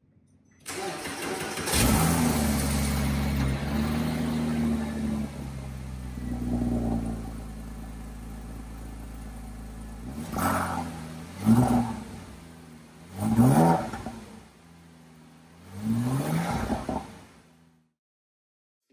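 A Porsche Cayman S's 3.4-litre flat-six, heard from behind at the exhaust, starts up about two seconds in and idles high before settling to a steady idle. Near the end it is revved four times, each rev a quick rising sweep, and the sound cuts off suddenly just before the end.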